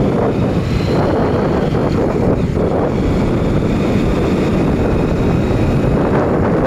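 Steady wind rushing over the microphone of a moving motorbike, mixed with the bike's running and road noise.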